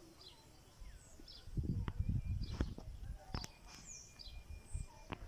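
Small birds chirping in short, high, falling calls. A low rumbling noise comes in about a second and a half in and is the loudest part, with a few sharp clicks after it.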